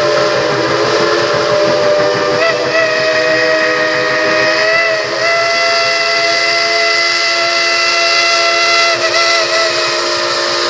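Steam locomotive's whistle blowing one long, near-continuous blast of several tones at once, with brief wavers in pitch a couple of times, over the noise of the approaching train.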